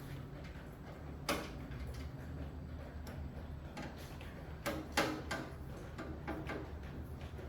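A few sharp clicks and knocks over a steady low hum: one about a second in, then three close together around the middle.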